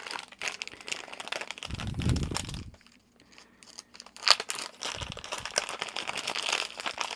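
Plastic packaging crinkling and rustling as watch straps are handled and unwrapped, with a soft low thump about two seconds in and a sharp click about four seconds in.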